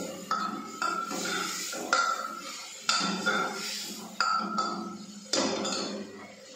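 A metal spoon scraping and knocking against the inside of an open pressure cooker as food is stirred, with about seven ringing clinks, roughly one a second.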